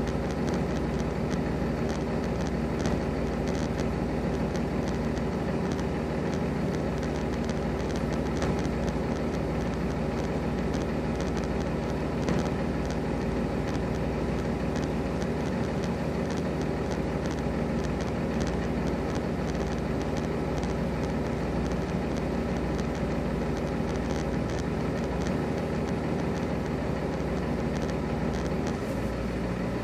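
Semi-truck diesel engines idling steadily, a constant low hum with a light, even clatter on top.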